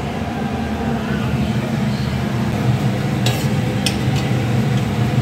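Three or four light metal clinks, a ladle knocking against a metal cooking pot, about three to four seconds in. Under them runs a steady low background hum.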